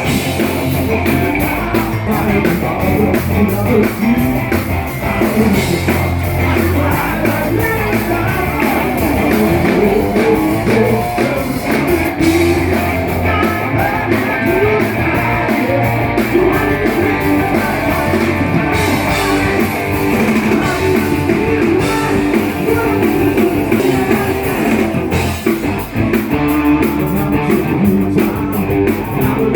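A live rock band playing, with guitar and a drum kit. The music runs on continuously and loudly with no sung words picked out.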